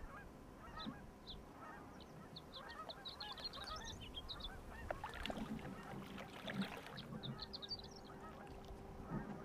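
A flock of birds calling, with many short calls overlapping and clusters of higher chirps. A low steady hum comes in about halfway through.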